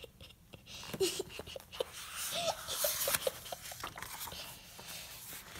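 A picture-book page being turned by hand: paper rustling and sliding, loudest about two to three seconds in, with a few soft clicks of paper and fingers. A faint breathy sound is mixed in.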